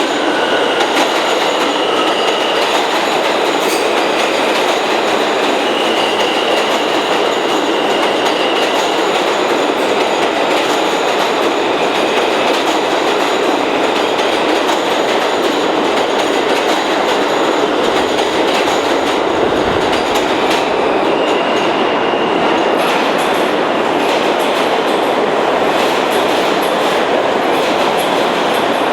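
New York City subway train running through a station, a loud, steady rumble of wheels on rail, with short high-pitched wheel squeals three times along the way.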